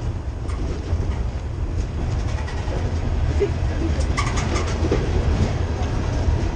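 Freight train of covered hopper cars rolling past close by: a steady low rumble of steel wheels on rail with clickety-clack at the rail joints, and a brief burst of sharper clatter about four seconds in.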